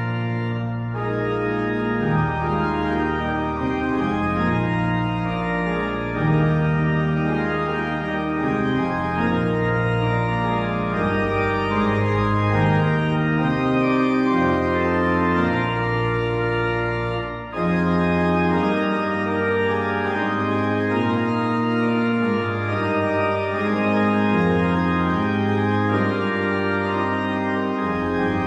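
Organ music: slow, held chords that change every second or so, with a short break about 17 seconds in.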